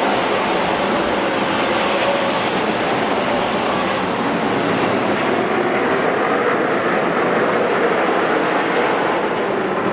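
A pack of NASCAR Camping World Truck Series race trucks running on track, their V8 engines blending into a steady drone with faintly wavering pitches.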